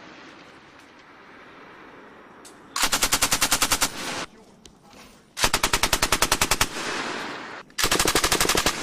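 Machine gun firing three short bursts of automatic fire, each about a second long at roughly ten rounds a second, with the shots echoing away between bursts.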